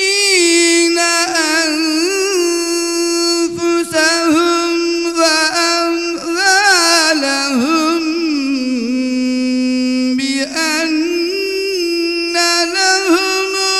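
A man's solo voice chanting a religious melody into a microphone, unaccompanied. The line is heavily ornamented with wavering trills and sustained notes, and sinks to a long low held note about nine seconds in.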